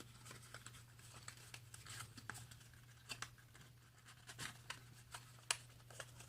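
Faint scattered clicks and rustles of cardboard and plastic packaging being handled while phone accessories are unpacked, over a low steady hum.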